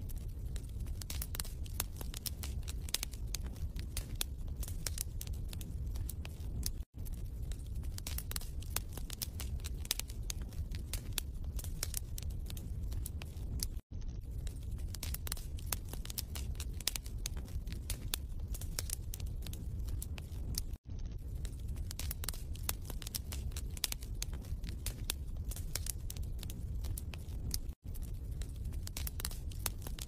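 Wood fire crackling: a dense run of small pops and snaps over a low rumble. The sound cuts out for an instant about every seven seconds.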